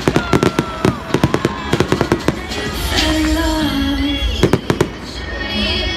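Fireworks going off in rapid crackling bangs, thickest in the first couple of seconds, with another quick cluster of bangs past the middle. Music with singing plays alongside from about halfway through.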